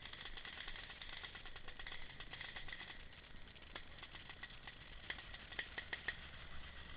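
Faint woodland ambience: a steady high buzz with rapid ticking, and a few sharper clicks between about four and six seconds in.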